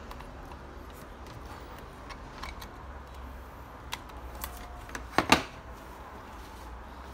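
Handling noise of a wireless HDMI extender receiver and its cables: small scattered clicks and rustles, with two sharp loud clicks close together about five seconds in, over a low steady room hum.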